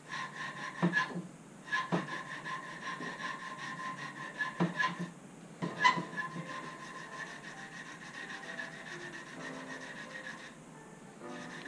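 Hand sanding a cast metal rifle trigger guard with fresh sandpaper: irregular rubbing strokes with a few light knocks, cut off briefly two or three times.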